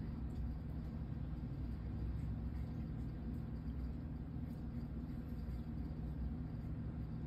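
A steady low background hum with a few even tones in it, unchanging throughout.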